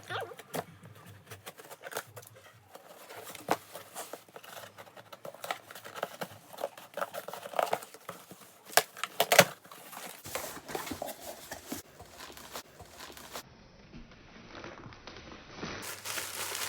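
Camera packaging being opened and handled: crinkling and tearing with many small clicks and taps, and a couple of louder snaps about nine seconds in.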